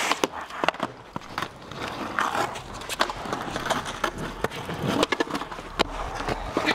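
Skateboard wheels rolling over rough concrete, with several sharp clacks as the board's tail and wheels strike the ground during tricks.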